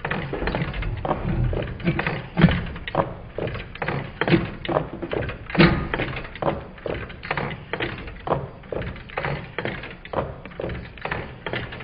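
Twin-cylinder Meccano Stirling engine running, a steady run of knocks two or three a second as its displacers land at each end of their travel.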